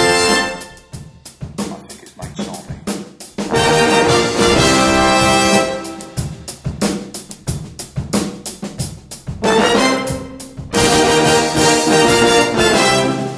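Music with a drum kit and sustained pitched instruments. Full loud passages alternate with sparser stretches carried mostly by the drums.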